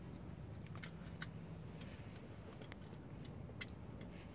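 A few scattered light clicks and taps of a plastic wiring-harness connector and hoses being handled in a tractor engine bay, over a faint low hum.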